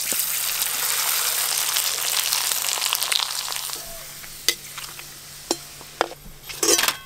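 Potato papads frying in hot oil in a metal kadai: a loud sizzle just after they go in that dies down after about four seconds. Several sharp clinks near the end, from a slotted metal spoon against the kadai as the puffed papads are turned.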